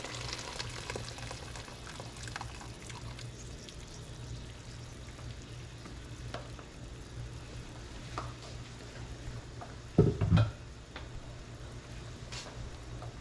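Hot water poured from a stainless kettle into a pot of sautéed chicken and gizzards, ending in the first second or so. Then a steady low hum with a few light clicks, and one loud dull thump about ten seconds in.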